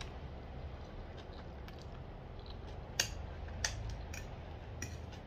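Close-miked eating sounds of a person chewing a mouthful of black-bean instant noodles: a few short sharp clicks, the loudest about three seconds in, over a steady low hum.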